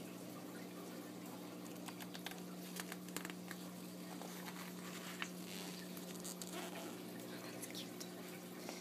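Pages of a glossy travel guidebook being handled and turned by hand: soft paper rustles and small taps scattered from about two seconds in, over a faint steady low hum.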